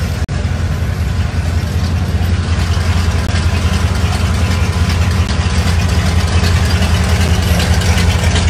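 Classic car's engine running at idle with a steady low rumble as the car rolls slowly past at close range.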